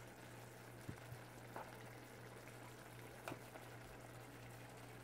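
Sauce simmering faintly in a pan around a fried fish, with a few light clicks of a metal spoon against the pan as sauce is spooned over, over a low steady hum.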